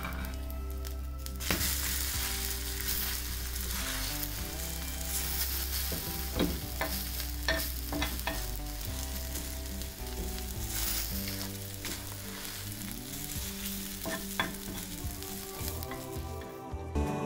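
Egg chapathi sizzling on a hot tawa, with a few sharp scrapes and taps of a steel spatula against the pan. Faint background music runs underneath, and the sizzle drops away near the end.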